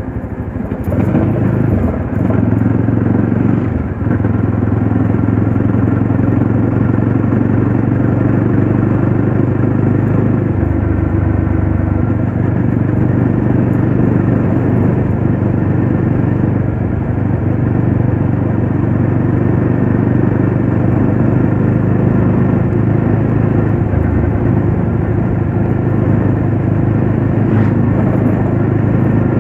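Classic Legends Yezdi Roadster's 334 cc single-cylinder engine running steadily at a cruise of about 50 km/h. It gets louder about a second in, then holds an even note.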